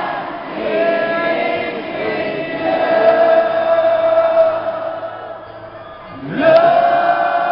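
Large concert crowd singing a melody together in long held notes. The singing drops for a moment, then comes back loud about six seconds in.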